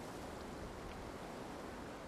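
Steady wind noise, an even hiss with no distinct sounds standing out.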